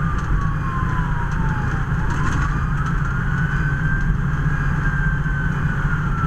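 Fire apparatus siren wailing, its pitch falling for about two seconds, rising again, then slowly falling, over the steady low drone of the truck's engine and road noise.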